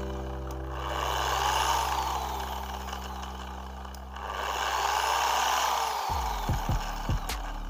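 H&L 8050 5-inch dual action polisher running free with a bare backing plate, its motor noise rising and falling twice, over background music.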